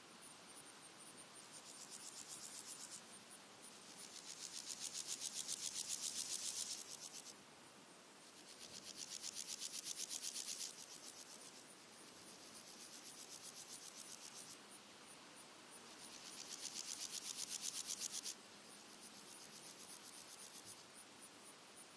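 Red-legged grasshoppers stridulating: repeated rasping bouts of rapid pulses, each a few seconds long, swelling in loudness and stopping abruptly, some louder and some fainter as different individuals sing. Between bouts a faint, high, fast ticking from another insect carries on.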